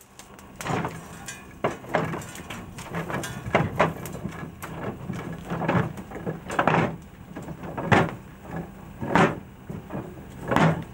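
A steam locomotive's ash pan being emptied over the ash pit: a dozen or so irregular bursts of rushing, rattling noise as steam and ash are driven out beneath the engine, the loudest ones toward the end, over a low steady hum.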